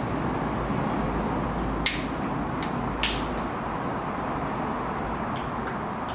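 A steady low rumble and hiss, with about six short sharp clicks scattered through it.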